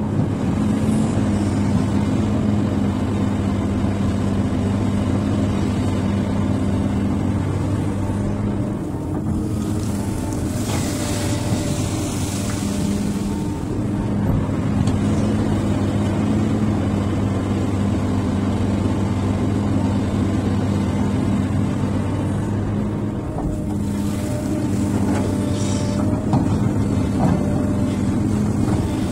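XCMG hydraulic excavator's diesel engine running steadily while the machine digs and swings crushed stone. A rushing hiss joins it about ten seconds in and lasts a few seconds.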